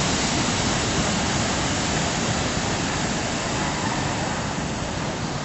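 Steady hiss of steam from two standing LMS Stanier Class 5 4-6-0 steam locomotives, slowly getting quieter.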